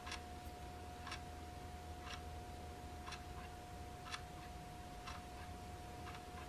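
Wall clock ticking faintly, about once a second, over a steady faint hum.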